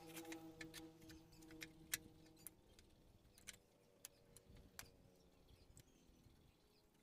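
Scattered light clicks and taps of thin wooden slats and strips knocking together as they are laid out and pressed down by hand, the sharpest about two seconds in. A faint steady hum fades out in the first few seconds.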